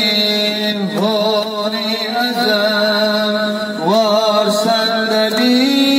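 A religious lament for Karbala being chanted: a single voice sings long, wavering, melismatic lines over a steady held tone.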